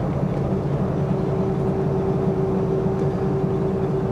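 Steady low drone, with a single held tone joining about half a second in.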